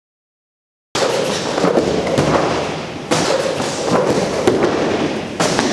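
Dead silence, then from about a second in loud, crackly noise full of thuds and knocks, breaking off and restarting abruptly twice. The thuds are a person's hands and feet landing on padded gym mats during tumbling moves.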